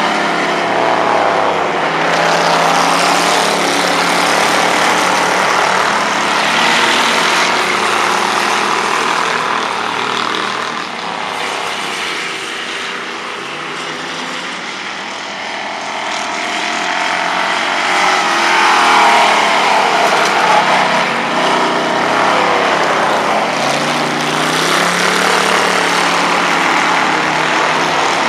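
Dirt-track stock car engine running hard around an oval, its pitch rising and falling as it accelerates down the straights and lifts into the turns. It grows quieter from about eleven to sixteen seconds in as the car goes round the far side, then louder again near nineteen seconds.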